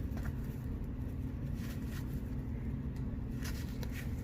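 Trading cards being handled, with a few faint paper rustles and flicks over a steady low background hum.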